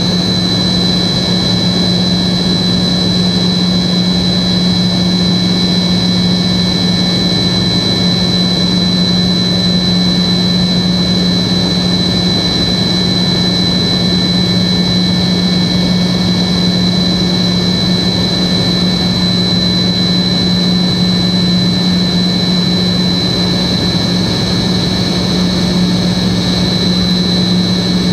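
Cabin noise of a Tupolev Tu-134B-3 in cruise-like steady flight: its two rear-mounted Soloviev D-30 turbofans run with a steady high whine over a constant low drone and the rush of air along the fuselage.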